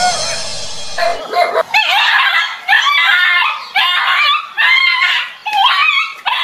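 A dog barking and yelping in quick, excited bursts of high, pitch-bending calls, after a harsh, noisy snarl in the first second.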